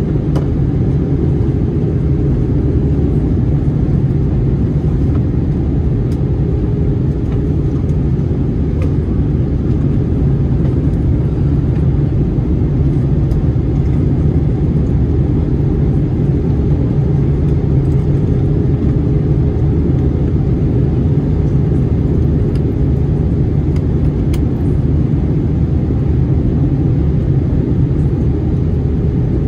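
Steady low cabin rumble of an Airbus A321-200 on final approach, the noise of airflow and engines heard from a seat by the wing, with a faint steady hum running through it.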